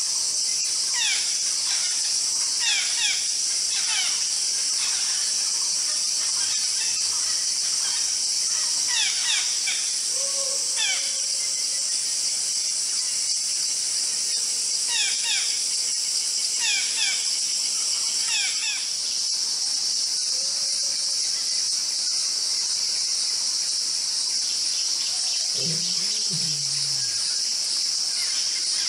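A steady, high-pitched insect drone runs throughout. Over it, a bird gives quick descending whistles in small groups through the first two-thirds, and a short low call sounds near the end.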